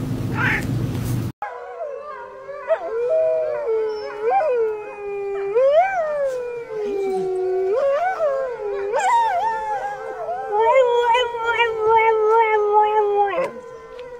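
A canine howl: one long call lasting about twelve seconds, starting about a second in, its pitch gliding up and down, wavering fast near the end, then stopping abruptly.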